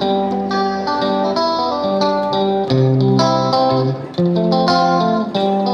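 Background music led by a plucked guitar, playing a melody of short, clearly separated notes.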